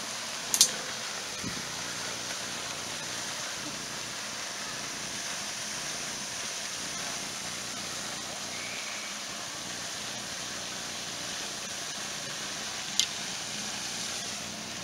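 Steady hiss of outdoor background noise, with two sharp clicks: one about half a second in and one near the end.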